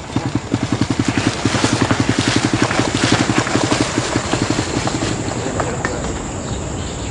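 Small motorcycle engine running with a rapid, even putter as it rides a dirt track loaded with bundles of banana leaves. The beat fades out after about five seconds.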